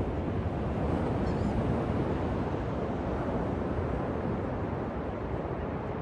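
Steady rushing wash of Atlantic Ocean surf breaking on a beach.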